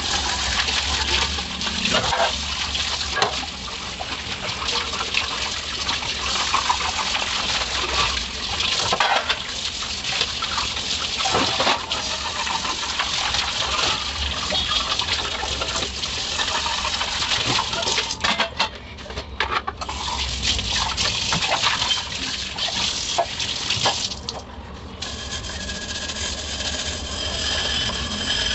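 Tap water running into a stainless steel sink and splashing over steel plates as they are rinsed by hand, with scattered clinks of steel dishware. The running water stops about 25 seconds in, leaving quieter handling sounds.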